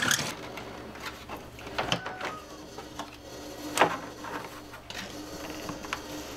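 Handling noise: scattered light clicks and knocks, with a faint steady hum underneath.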